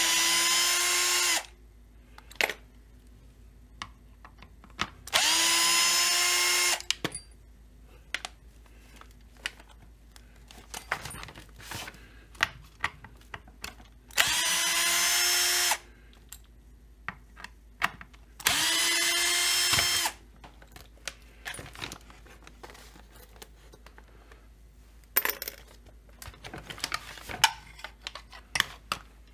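Cordless drill/driver backing screws out of a chainsaw's housing in four short runs, each spinning up to a steady whine and stopping after about a second and a half. Small clicks and metal clinks of screws and parts being handled come in between, more of them near the end.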